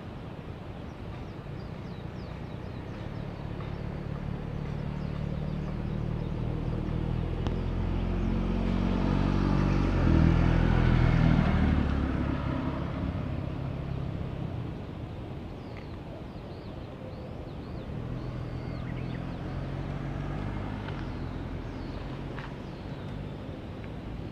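A road vehicle driving past: its engine rumble swells over about ten seconds, is loudest around the middle, then fades away.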